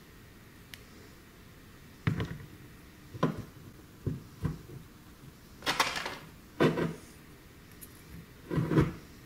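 A steel sprocket and metal bracket being handled and fitted together by hand, giving a string of irregular metallic knocks and clatters, about seven in all, the longest about six seconds in.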